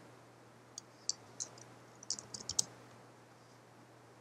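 Computer keyboard keys and mouse buttons clicking lightly: a few scattered clicks, then a quick run of them about two seconds in, as numbers are typed into a program's fields. A faint steady electrical hum runs underneath.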